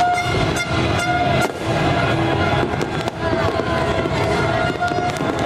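Fireworks crackling and popping in a rapid, dense stream, with steady held tones sounding over them.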